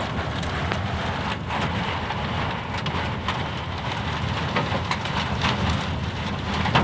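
Thunderstorm with heavy wind-driven rain and strong wind, with hailstones striking in many scattered sharp hits.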